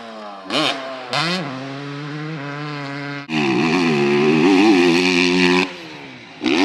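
Motocross dirt bike engines revving as riders take the jumps: two short, sharp throttle blips about half a second and a second in, then a loud full-throttle run with a wavering pitch from a little past three seconds that drops off, and another hard rev just at the end.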